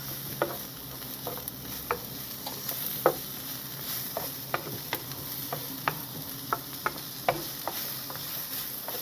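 Cooked chicken and softened onions sizzling in a frying pan as they warm through, with a utensil clicking against the pan every second or so as they are stirred.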